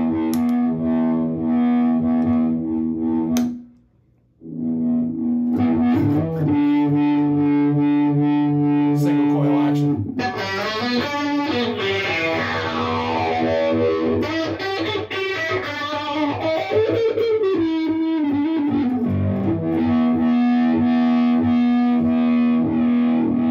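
Electric guitar played through a Digitech Dirty Robot synth pedal with gain added, giving held synth-like notes. The sound cuts out briefly about four seconds in; in the middle a run of notes sweeps downward in pitch, and a held note returns near the end.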